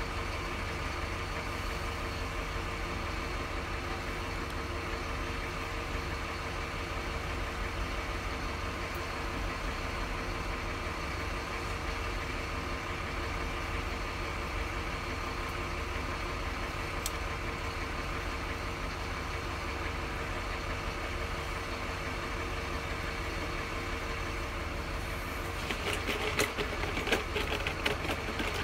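Steady low machine hum with a few constant tones in it, like a running fan or air-conditioning unit. In the last few seconds it is joined by light clicks and taps as the phone's frame and small parts are handled.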